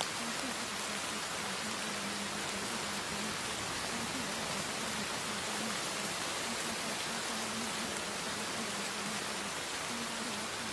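Steady rain track: an even hiss of falling rain with no breaks. Underneath it, a faint low tone comes and goes.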